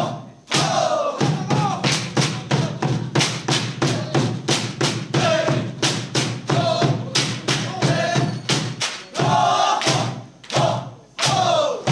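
Bamboo poles of a bamboo dance clacking together and knocking on the stage floor in a fast, even rhythm of about three to four strokes a second, with a drum and group singing or chanting over it. The beat drops out briefly at the start and again shortly before the end.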